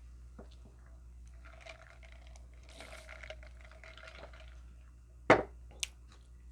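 Soft mouth and liquid sounds of eating or drinking at the table. About five seconds in there is a sharp thump, with a small click just after.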